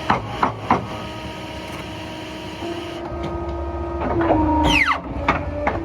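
Programmable paper cutter humming steadily as it cuts a paper stack, with several sharp knocks as the stack is handled and a brief falling whine about four and a half seconds in.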